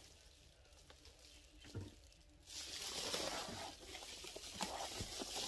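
Fabric windshield sunshade rustling and crinkling as it is handled and spread out, starting about two and a half seconds in after a quiet stretch with one soft knock.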